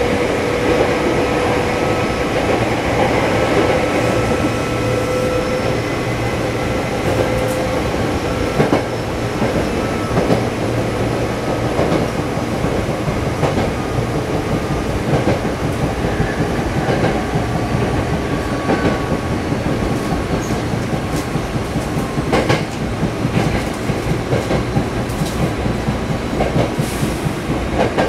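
Hankyu Kobe Line electric train running, heard from inside the front car: a steady running rumble with wheels clicking over rail joints. A faint steady whine fades out about eight seconds in.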